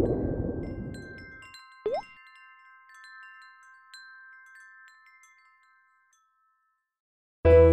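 Wind chimes: several clear, high chime tones struck one after another and left ringing, fading away to silence. Before them a splashing water rush dies out, with a single water-drop plop, a quick rising blip, about two seconds in. Acoustic guitar music starts just before the end.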